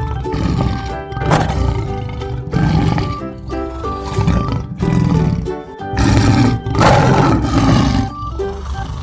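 Recorded big-cat roars, the leopard's call in an animal-sounds lesson, heard several times over background music.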